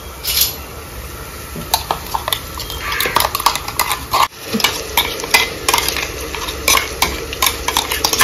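Metal spoon scraping and clinking against a stainless steel cup as ground ginger, garlic and green-chilli paste is scraped into a pressure cooker. Irregular sharp clicks begin about two seconds in, over onions sizzling in the cooker.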